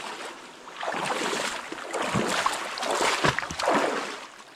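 Water splashing in several surges as a person wades through a shallow river.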